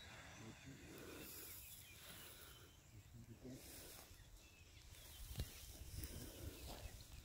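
Near silence: faint outdoor background hiss with soft rustling, and a few faint low thumps about five seconds in.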